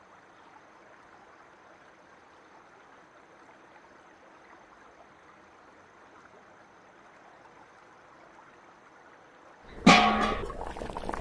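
A faint steady hiss, then about ten seconds in a large stainless-steel wok lid is lifted off the wok with a loud sudden metallic clang that rings on in clear tones.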